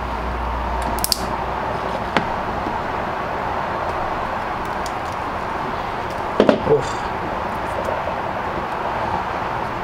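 Steady background hiss, with a few sharp clicks of pliers against a plastic headlight housing as it is pried apart, and a brief vocal sound about six and a half seconds in.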